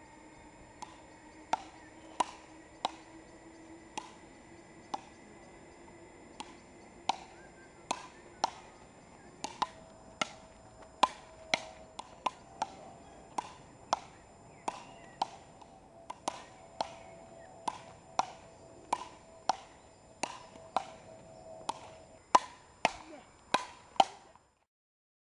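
Frescobol rally: wooden paddles hitting a rubber ball back and forth, a sharp clack about every three-quarters of a second. The sound cuts off abruptly just before the end.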